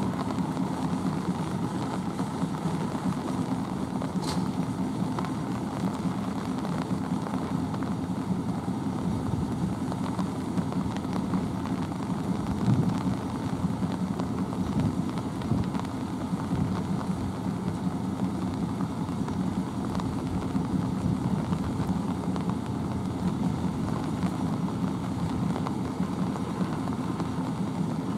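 Diesel locomotive engine idling steadily, a low even hum.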